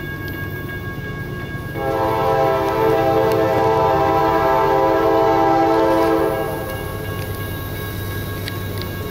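A CSX diesel locomotive's air horn sounding one long blast, several notes together, starting about two seconds in and lasting about four and a half seconds, over the steady low rumble of the approaching train.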